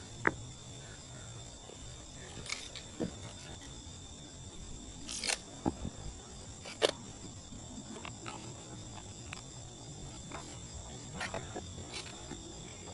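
A few scattered light knocks and taps of small wooden carvings being handled and set down on a wooden stand, over a steady high-pitched whine.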